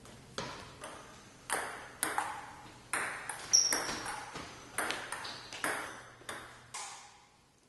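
A series of about a dozen sharp struck pings at uneven intervals, each ringing briefly with a clear pitch and fading away.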